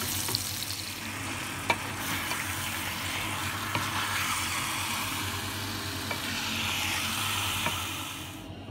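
Sliced onions sizzling as they fry in hot oil in a pan, being browned, with stirring and one light knock about two seconds in. The sizzle cuts off abruptly just before the end.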